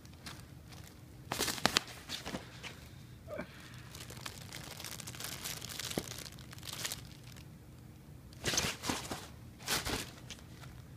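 Nylon fabric of a pop-up cat play tunnel rustling and crinkling as kittens and a hand move against it, in irregular bursts; the loudest come about a second and a half in and twice near the end.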